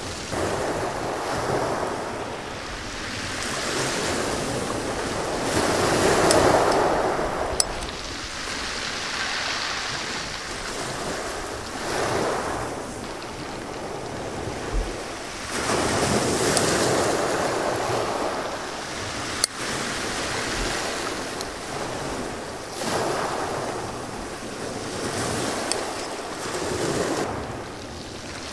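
Sea waves breaking and washing up a pebble beach, swelling and fading every few seconds, with some wind on the microphone. A couple of brief sharp clicks sound above the surf.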